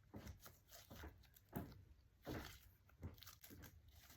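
Faint, irregular squishing and sticky crackling of a milk tea slime with black bead pearls in it being stretched and pressed in the hands.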